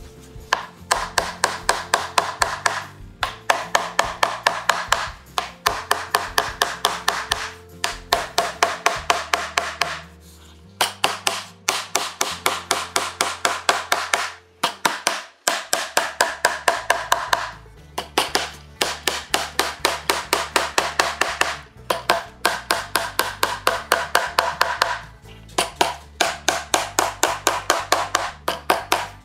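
Claw hammer driving nails into the wooden boards of a wagon tailgate: runs of quick, even strikes, about five a second, broken by short pauses. Background music plays underneath.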